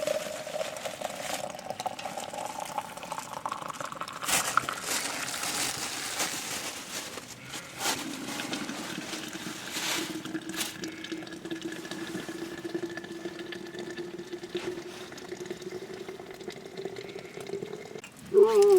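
Water being poured into a container, its ringing note rising in pitch as the vessel fills, twice over. A short, loud, wavering call cuts in just before the end.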